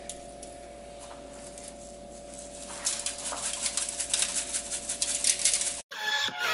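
Shaker of prime rib seasoning shaken over a raw rib roast: a quick run of rattling shakes begins about three seconds in, over a steady hum. Music cuts in just before the end.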